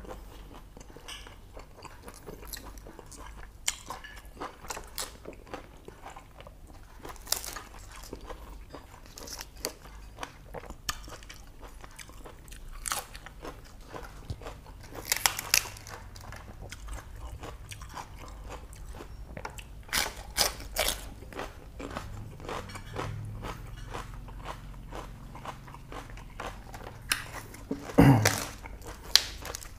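Close-up chewing and crunching as a person eats mouthfuls of boiled pork intestines with raw cabbage and lettuce leaves. Irregular crisp bites and crunches, louder about halfway through and again near the end.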